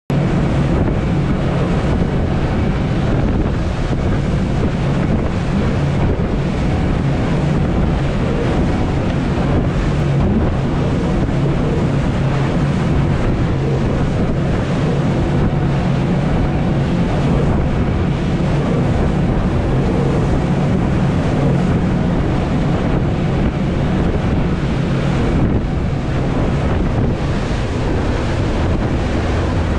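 Four outboard motors running steadily at speed, a constant low drone under heavy wind buffeting on the microphone and the rush of the wake.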